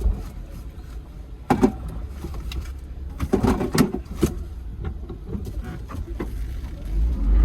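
A vehicle engine running low, with a series of knocks and clunks, and the engine getting much louder near the end.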